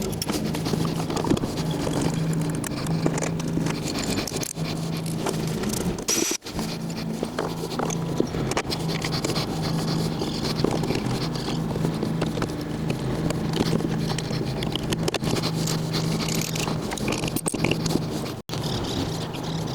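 Scraping and clicking of hands and tools working on metal dome-wheel parts, over a low steady hum, with two abrupt cuts.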